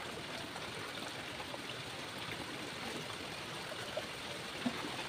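Weak, steady trickle of water from a hose into a steel basin, with a few faint drips.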